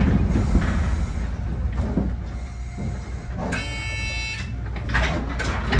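A 1928 Kawasaki-built wooden tram with nose-suspended traction motors running, heard from its cab: a steady low rumble with a few knocks from the wheels over the track. About halfway through, a horn sounds once for about a second.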